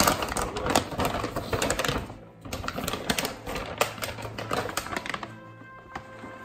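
Plastic dry-food bag crinkling, with the last few kibbles rattling inside it: rapid, irregular clicking that thins out after about five seconds. Background music plays throughout.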